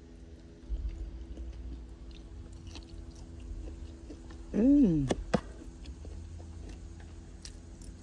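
Someone chewing a mouthful of food, with a short, pleased "mmm" hum about halfway through and a sharp click just after it.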